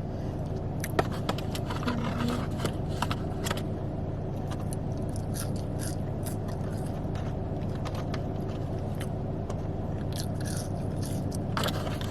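Close-up eating sounds of a Big Mac being bitten and chewed, with scattered small clicks and crackles of the wrapper being handled, over a steady low hum.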